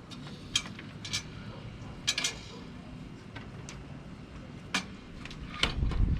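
Sharp clicks and clinks of small hardware being handled while fitting a handle to a greenhouse window, about seven separate ticks with a low handling thud near the end.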